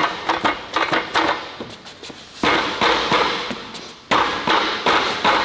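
Metal knocks and clatter of a car wheel dolly being set under a tyre and worked with the foot: a run of sharp clunks and clicks, with two short rattling stretches about two and a half and four seconds in.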